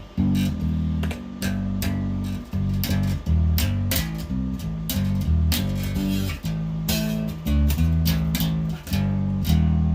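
Glarry jazz-style electric bass played on its bridge pickup alone, through a Peavey Vypyr modelling amp on its bass setting: a continuous run of plucked notes, several a second, each with a sharp attack.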